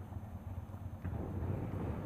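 Honda VTR250 V-twin motorcycle engine running at low revs, a low steady rumble with wind on the microphone; it gets a little louder about a second in.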